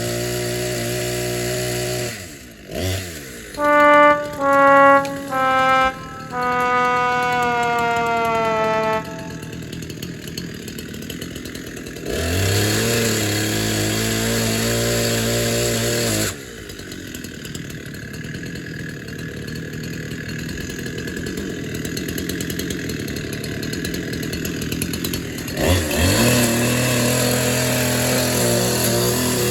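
A comedic 'sad trombone' sound effect: four descending brass notes (wah-wah-wah-waaah), the last held and sliding down in pitch, the classic signal of a failure. It breaks into the steady running of a small engine, which starts up again afterwards.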